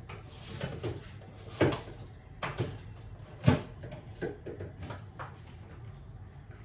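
Light knocks and clicks of kitchen containers and utensils being handled, about five separate strikes spaced roughly a second apart, the loudest about a second and a half and three and a half seconds in.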